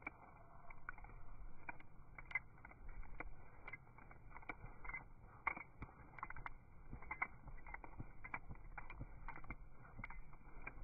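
Faint, irregular clicks and rustles from a Norwich Terrier puppy repeatedly shaking its head to clear snow from its face.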